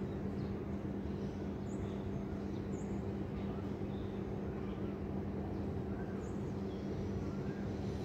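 City ambience heard from a rooftop: a steady low hum and a constant wash of distant traffic noise, with brief high bird chirps scattered throughout and a few short warbling notes near the end.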